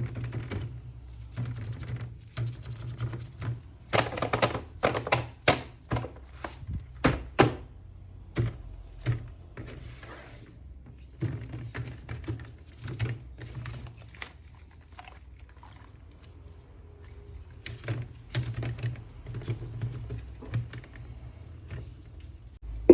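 Irregular clicks, taps and knocks of plastic toys and packaging being handled during an unboxing, densest about four to nine seconds in, over a low steady hum.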